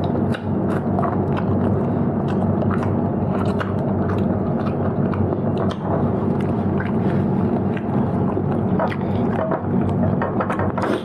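A person chewing and eating close to the microphone: many small sharp mouth clicks and smacks over a steady low hum.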